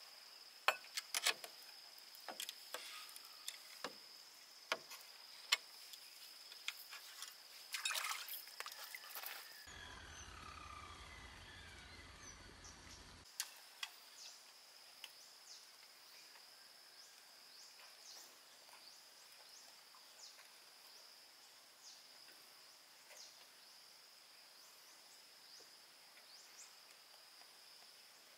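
A steady high insect drone over quiet outdoor ambience, with scattered knocks and clicks through the first nine seconds or so. After that only the insect drone and a few faint short chirps remain.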